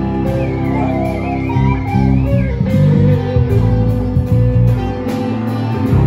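Live band playing: electric guitars and bass guitar over drums, with a wavering, bending lead line in the first couple of seconds.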